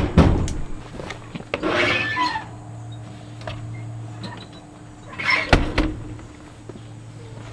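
A few sharp knocks and clicks with a brief rustle, as of gear being handled, over a low steady hum that starts about two seconds in.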